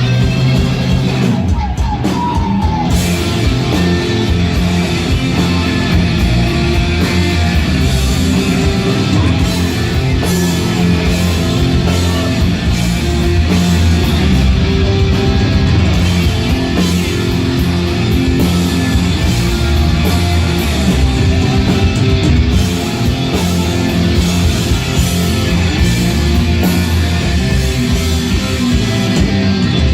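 Loud rock music with guitar and some singing.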